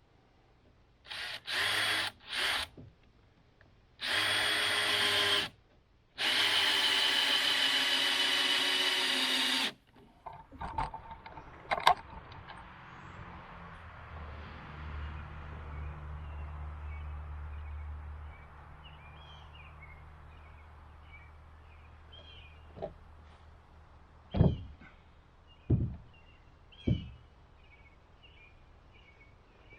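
Power drill running in bursts while working on the timbers of a wooden sawmill base: two short bursts, then a longer one and a run of about three and a half seconds with a steady whine. A few sharp knocks come later, with faint bird chirps.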